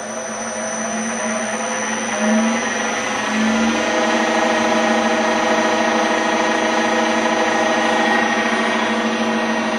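Bridgeport milling machine's original three-phase motor, fed by a variable frequency drive, spinning up the spindle through a poly-V belt: a whine rising in pitch for about the first four seconds, then running at a steady speed.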